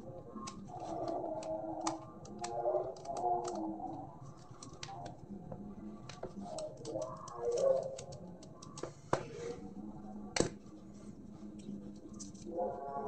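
Small plastic and metal clicks and taps as a handheld wireless microphone is pried open with a small screwdriver and its grille head unscrewed from the body, with one sharper click about ten seconds in.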